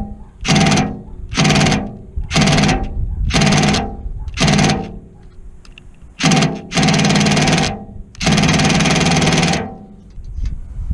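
Power drill run in about seven short pulls of the trigger, buzzing as it tries to back out a rusted screw in a 30-year-old galvanized furnace vent cap. The last run, near the end, is the longest. The screw is not turning.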